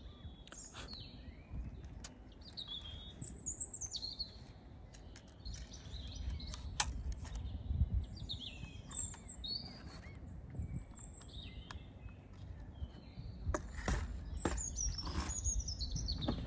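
Small birds singing, with many short chirping and warbling phrases, over a low rumble of wind noise. A few sharp clicks stand out among them.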